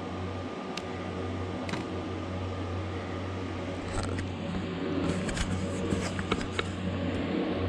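Steady low mechanical hum, like a fan or air-conditioning unit running, with a few light clicks and taps scattered through it.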